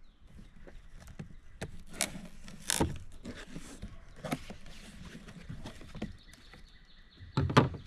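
Cardboard shipping box being opened by hand: scattered crackles, scrapes and taps from the tape and flaps, with a few sharper clicks along the way and a louder rustle near the end.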